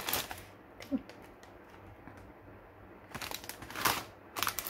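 Foil-lined potato chip bag crinkling as it is gripped and handled, in irregular crackly bursts. The bursts are sparse at first and grow thicker and louder in the last second and a half.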